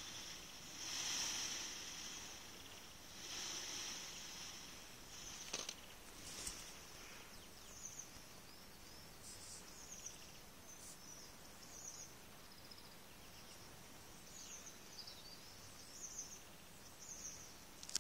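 White peacock shivering his fanned train in display, a dry rustling rattle in bursts about two seconds apart over the first few seconds. A sharp tap follows, then faint, scattered high bird chirps.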